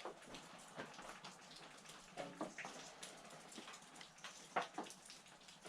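Water dripping and pattering irregularly, as from melting heavy wet snow, with two brief faint pitched sounds about two and four and a half seconds in.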